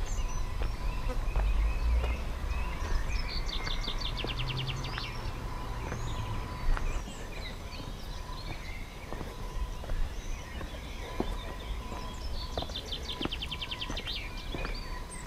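Songbirds singing, with the same rapid trilled phrase heard twice, about 3 seconds in and again about 12 seconds in, among scattered chirps. Footsteps scuff on stone paths, and wind rumbles on the microphone, strongest at the start.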